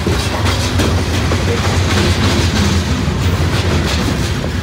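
Freight train of steel hopper cars rolling past close by: a steady loud rumble of wheels on rail, with repeated clacks from the wheels.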